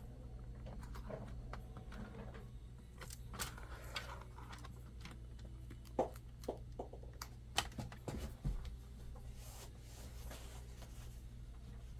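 Light clicks and taps of small plastic laptop parts being handled and fitted during reassembly, most of them bunched a few seconds past the middle, over a steady low hum.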